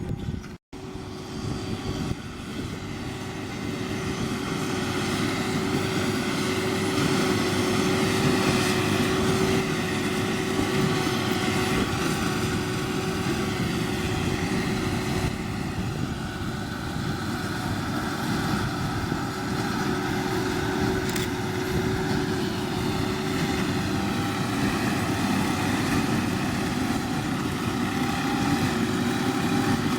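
John Deere 7530 tractor's diesel engine running steadily while driving a Massey Ferguson 2270 large square baler, with a steady hum over the engine noise. It cuts out briefly just after the start, grows louder over the next few seconds, then holds steady.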